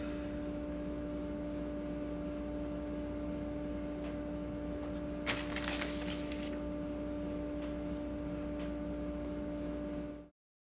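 Steady electrical hum of room tone, with a brief rustle of sheets of paper being picked up about five seconds in and a couple of faint ticks. The sound cuts off abruptly near the end.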